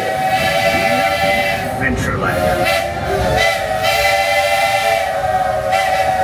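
Steam whistle blowing a sustained chord in long blasts, with a few short breaks. It sounds over the rumble of the moving Walt Disney World Railroad train.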